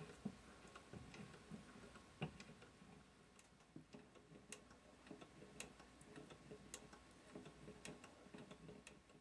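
Weeden No. 34 toy live-steam engine running: a faint, rhythmic patter of small knocks from its cylinder and valve gear, with a sharper click about once a second.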